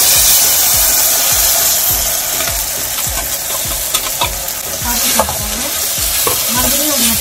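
Wet ground tomato and cashew paste hitting hot oil and fried onions in a metal kadai, sizzling loudly and steadily. A perforated steel ladle clinks and scrapes against the pan as the mixture is stirred, with the clinks starting a couple of seconds in.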